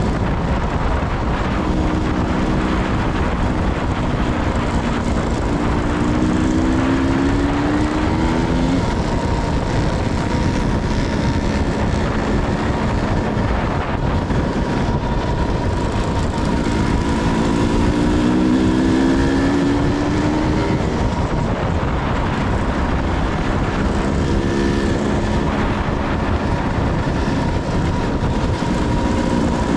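Dirt bike engine running as it rides along, its pitch climbing again and again as it revs up through the gears, under heavy wind noise on the microphone.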